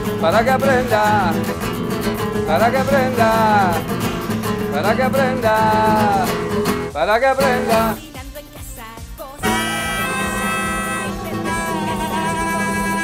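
Live acoustic music: a nylon-string classical guitar strummed under a harmonica playing bending melodic phrases. After a short drop in level about eight seconds in, the music resumes with long held notes as a flute joins.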